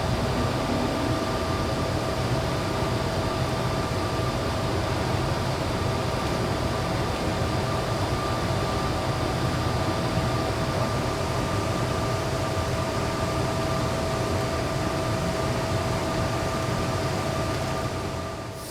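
Steady factory-floor hum of ventilation and machinery, with a faint constant whine of several high tones over an even rushing noise.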